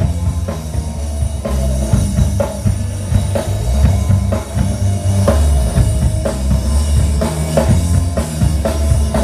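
Live manguebeat rock band playing: a driving drum kit with bass drum on a steady beat, over bass and electric guitar.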